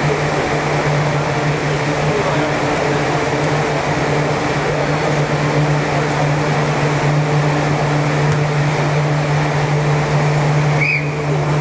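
Steady drone of an air-supported sports dome's blower fans: a constant low hum with fainter steady tones above it. A brief high-pitched chirp sounds near the end.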